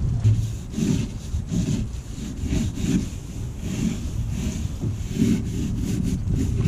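Repeated back-and-forth scraping strokes, about one to two a second, typical of hand-scraping or scrubbing a surface.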